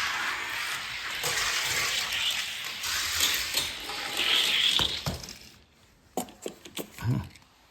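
Die-cast toy cars rolling down a toy race track, a steady rushing rattle of small wheels on the track. It stops about five and a half seconds in, followed by a few light clicks and knocks.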